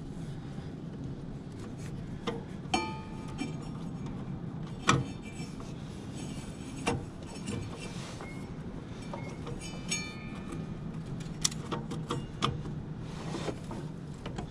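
A new rubber drive belt being worked by hand around the pulleys under a zero-turn mower: scattered knocks and light metallic clinks, a few ringing briefly, over a steady low hum.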